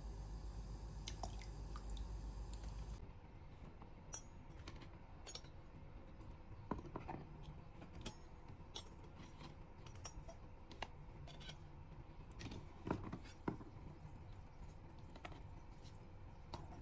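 Faint, scattered clicks and light taps of kitchen items being handled, irregularly spaced, with a couple of louder knocks about two-thirds of the way through. A low steady hum underlies the first three seconds, then stops.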